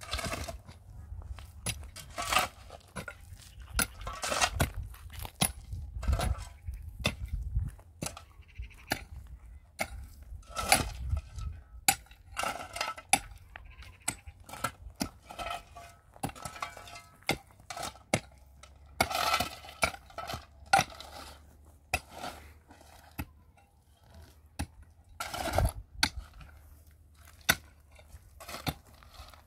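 Irregular sharp clinks and knocks of hard objects being handled and struck against each other, some with a short rattle, over a low background rumble in the first half.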